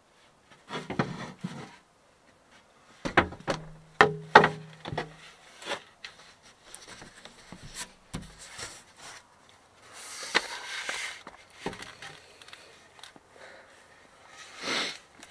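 A large wooden board being handled in a van's cramped interior, knocking and scraping against the fittings as it is worked into a tight space. A cluster of sharp knocks comes about three to four seconds in, and longer scraping rubs follow later.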